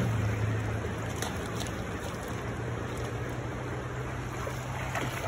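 River water flowing over rocks in a steady rush, with a steady low hum underneath.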